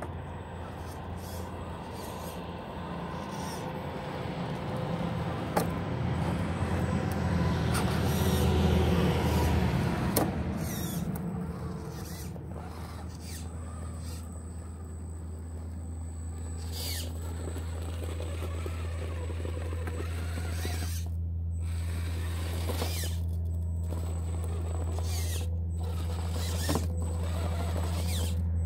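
Redcat Gen8 RC rock crawler's electric motor and gear drivetrain whirring as it crawls over rocks, a steady low hum that is louder in the first ten seconds or so. Occasional short clicks and knocks from the truck working over the rocks.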